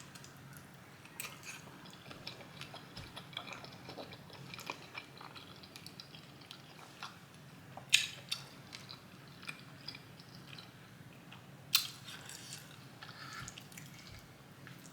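Close-up chewing and mouth sounds of a person eating, with many small wet clicks, and two sharp louder clicks about eight and twelve seconds in.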